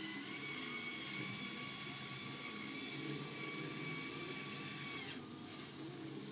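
Steady whine of a small electric motor, with several held tones over a low hum; the sound changes abruptly about five seconds in.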